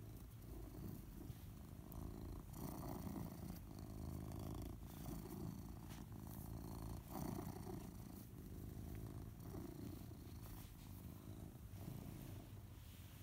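Tuxedo cat purring steadily, the purr swelling and easing with each breath.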